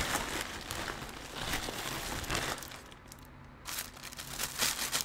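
Hands rummaging in plastic shipping bags, the plastic crinkling and rustling as a small plastic pouch is pulled out. It goes quieter for a moment about three seconds in, then crinkles again.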